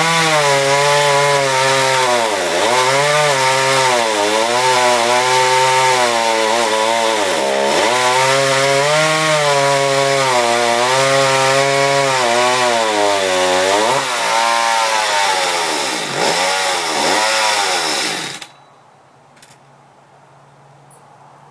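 McCulloch mini chainsaw running loud, its engine pitch dipping and recovering again and again. It cuts off suddenly near the end, leaving a few faint clicks.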